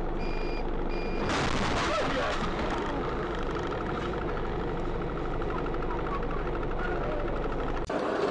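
Pulsing warning beeps that stop about a second in, then a sudden loud crash as a bus collides with the car, followed by steady rattling noise with a fast ticking.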